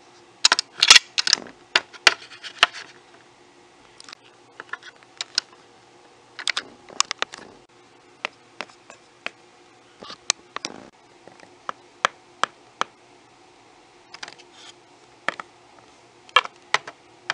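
Small hard plastic toy pieces being handled: sharp clicks and taps, a quick cluster in the first few seconds, then single taps scattered about every second.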